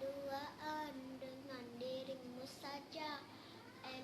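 A child singing a melody, holding long notes with small pitch bends, phrase after phrase.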